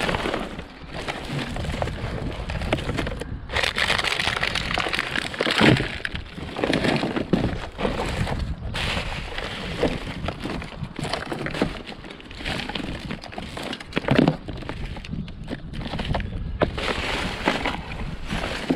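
Rummaging through scrap in a dumpster: irregular clattering, scraping and rustling as pieces are handled and shifted, with two sharper knocks about six seconds in and again about fourteen seconds in.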